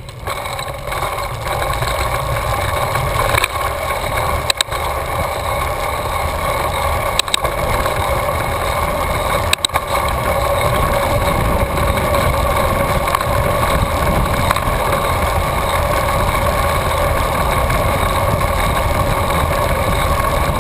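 Wind rumbling on a handlebar-mounted camera as a bicycle rolls along a paved road, with a steady tyre and drivetrain whir. It gets louder right at the start as the bike gets moving, and a few sharp clicks or knocks come in the first half.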